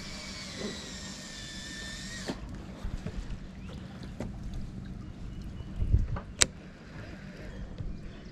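A baitcasting reel's spool whirring as line pays out on a cast, a whine that sinks slightly in pitch for about two seconds and stops abruptly. About six seconds in there is a low knock, then a sharp click.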